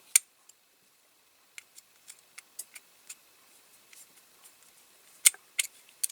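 Small metal clicks and taps of a screwdriver working the screw that holds the crane in a die-cast toy, and of the metal parts being handled: a sharp click right at the start, a run of light ticks, then two sharp clicks near the end.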